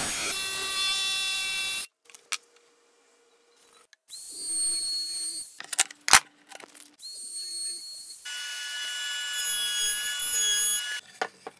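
A DeWalt cordless jigsaw cuts through an oak board for about two seconds, then stops. After a short silence, a router-table router with a flush-trim bit runs in short spells, with a sharp knock about six seconds in, and then trims the oak in a steady, longer cut near the end.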